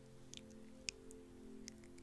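Soft ambient background music of sustained low pad chords, with scattered faint clicks; one sharper click comes a little under a second in.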